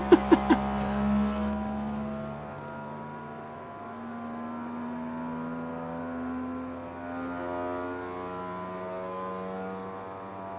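Qidi X-Smart 3 3D printer running its input-shaping resonance test: the stepper motors shake the print head and the whole frame, giving a steady buzzing hum that jumps to a new pitch every few seconds.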